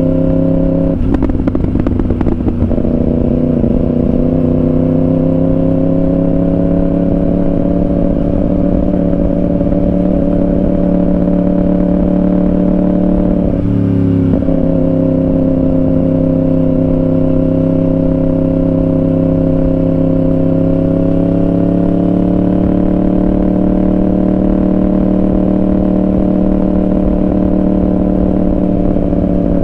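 Yamaha R1 inline-four sportbike engine with a Yoshimura exhaust running at a fairly steady cruising speed under way. There is a short rough patch about two seconds in and a brief break in the note about fourteen seconds in, and the pitch climbs gently after about twenty seconds.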